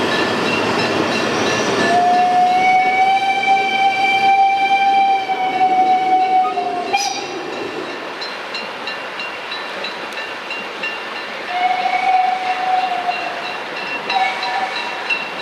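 Narrow-gauge steam locomotive's whistle: one long steady blast of about five seconds, then after a pause a shorter blast and a brief toot near the end. Before the first blast, the train's running noise.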